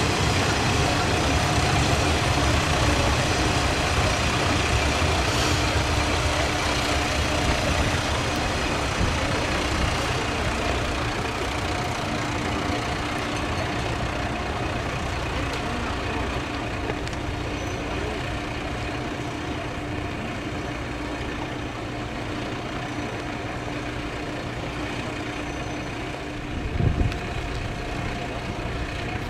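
A diesel railcar passes close by with a heavy low rumble that eases off. It gives way to a Sanriku Railway diesel railcar's engine idling with a steady hum, and there is a brief low thump near the end.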